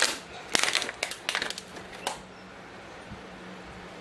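Hands rummaging among items on a workbench: a quick cluster of clicks, knocks and rattles in the first two seconds, then quiet with a faint steady hum.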